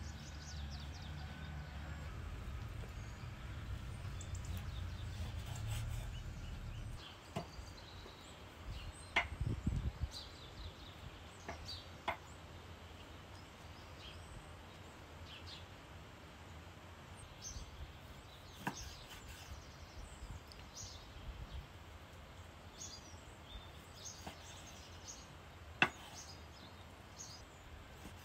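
Outdoor ambience: a steady low rumble for about the first seven seconds, then faint, scattered short bird chirps with a few sharp knocks.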